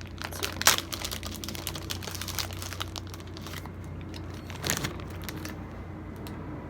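Fast plastic clicking and crinkling as a Gan356 RS speedcube and its plastic packaging are handled, the clicks thinning out near the end.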